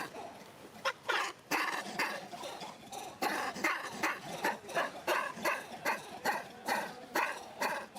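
Baby monkey giving short squeaky calls over and over, about two or three a second.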